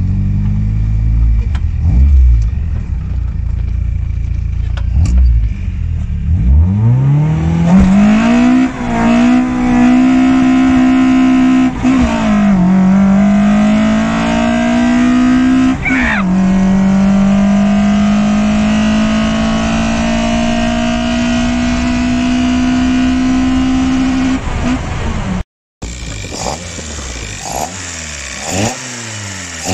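Toyota 20-valve silvertop four-cylinder breathing through individual throttle bodies with trumpets, pulling hard through the gears. It rumbles low at first, then climbs in pitch, drops twice at upshifts and makes one long steady pull. After a cut near the end there are several quick revs up and down.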